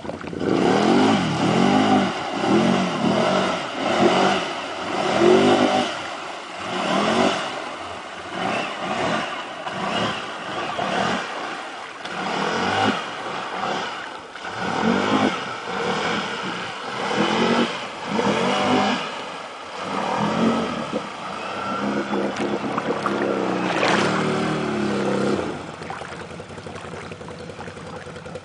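Can-Am Renegade 800 ATV's V-twin engine revved in repeated throttle blips, rising and falling about once a second while the quad wheelies through water. Near the end it holds a steadier run of revs, then drops away.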